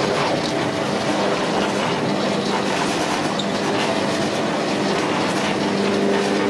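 Electric pastry-sheet and wrapper-making machine running steadily: a motor hum over an even mechanical clatter from its rollers and conveyor belt.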